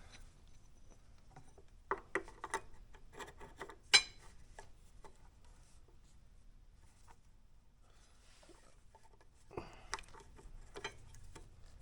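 New motorcycle brake pads being handled: scattered light clicks and taps, one sharper click about four seconds in, and rubbing and rustling near the end.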